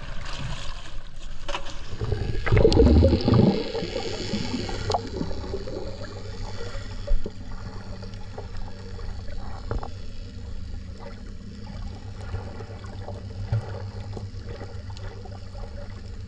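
Water heard from underwater as a snorkeler goes down: a louder splashing, gurgling stretch about two to four seconds in, then a muffled low rumble with scattered small clicks.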